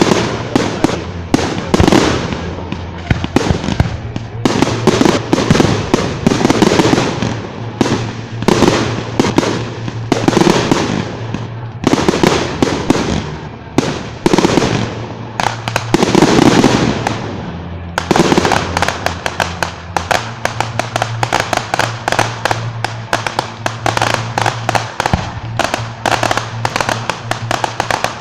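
Fireworks display: a string of loud shell bursts, each bang trailing off, giving way about 18 seconds in to a dense run of rapid crackling reports several times a second.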